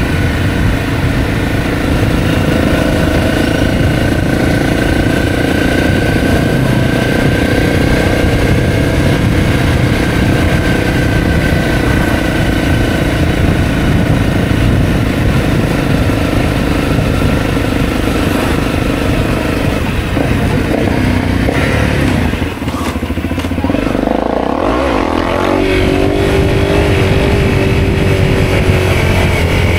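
Honda CRF250L's single-cylinder four-stroke engine running steadily while riding, heard from a bike-mounted camera with a low rush of wind underneath. About three-quarters of the way through the engine note eases off briefly, then settles again at a higher pitch.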